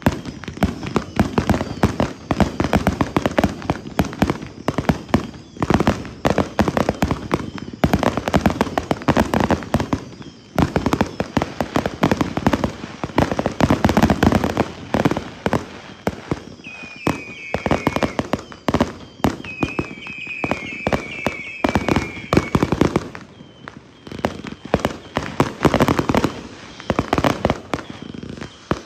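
Consumer firework cakes firing in dense, continuous barrages of sharp bangs and crackles. A wavering high whistle cuts through twice around the middle.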